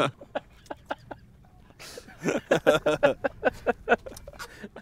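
Men laughing: bursts of short, rhythmic ha-ha pulses, loudest in a run about two seconds in, then picking up again near the end.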